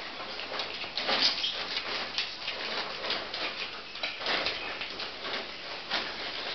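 A dog snuffling and breathing close to the microphone: a run of short, irregular breathy puffs.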